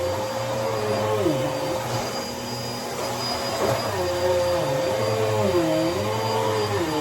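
Dirt Devil Breeze cyclonic vacuum cleaner running, its motor pitch dipping and recovering over and over as it is worked back and forth.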